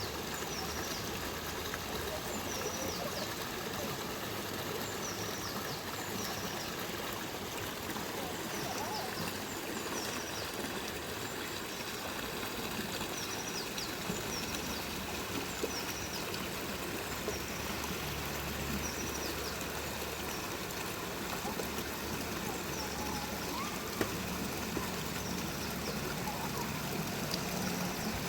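Steady rain hissing down, an even wash of water noise at a constant level, with short high chirps repeating every second or two.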